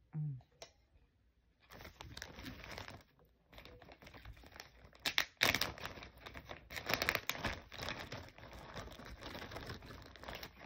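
Clear plastic zipper bag crinkling and rustling as a hand opens it and reaches inside, with sharp crackles throughout. A short closed-mouth hum comes right at the start.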